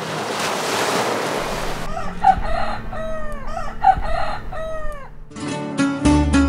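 A wave washes up a pebble beach, then a rooster crows twice in a run of arched, falling calls. Plucked-string music starts near the end.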